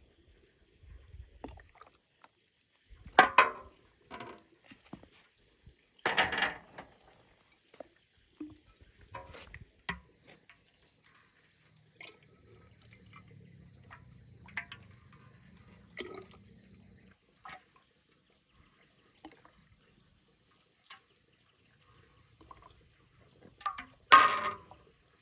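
Long-handled metal ladle scraping and knocking against a large metal wok as thick sugarcane molasses is scooped out and poured into glass jars: three short loud scrapes about three seconds apart, one more near the end, and light clinks between.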